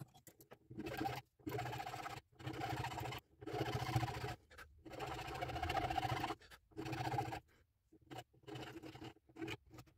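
Hand file rasping back and forth on the spider's 4 mm steel-wire legs, shaping the ends into jaws. The strokes each last about a second with short pauses, about six strong ones, then lighter, shorter strokes near the end.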